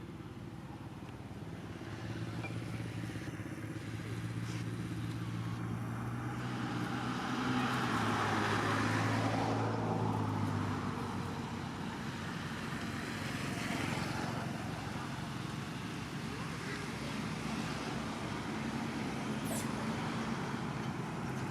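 A motor vehicle passing by: the engine hum builds over the first few seconds, is loudest around nine seconds in, then eases off into a steady road-traffic rumble.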